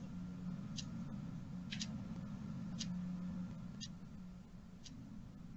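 Faint, regular clicking about once a second over a low steady hum: a recording glitch in the web-meeting audio.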